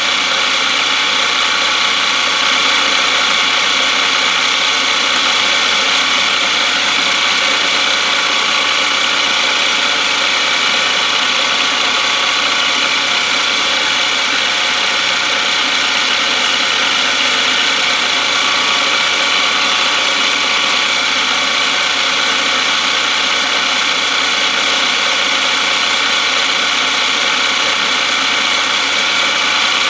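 Milling machine running steadily: a constant mechanical drone with a gear whine as it engraves graduation lines around the edge of a metal disc.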